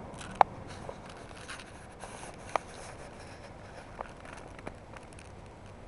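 Faint steady outdoor background hiss of an open beach, broken by a few short sharp clicks, the loudest about half a second in and a smaller one about halfway.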